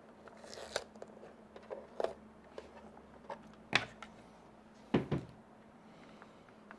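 Scattered clicks and knocks of plastic parts being handled as the display module is taken off a Creality Ender 2 Pro 3D printer and unplugged, with a louder knock near the middle and a quick double knock about five seconds in.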